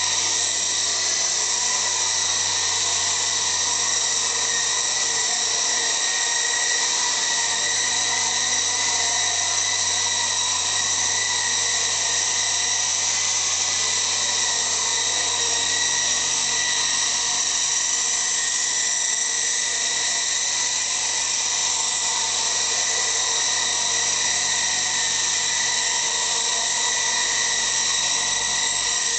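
Revell White Wolf electric RC helicopter in flight, its motor and spinning rotors giving a steady, high-pitched whine that holds level throughout.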